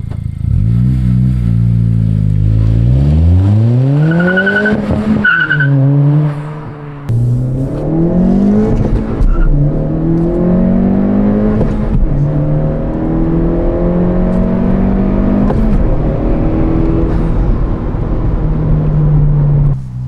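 Exhaust note of an 11th-gen Honda Civic Si / Acura Integra's 1.5-litre turbocharged four-cylinder through a PRL Motorsports exhaust. It climbs sharply in pitch a few seconds in, falls and goes quieter briefly about six seconds in, then pulls again with the pitch rising and falling in steps.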